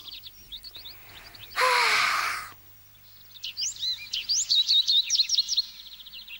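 Small songbirds chirping in quick runs of high twittering notes, busiest in the second half. About two seconds in comes a short breathy vocal sound with a falling pitch.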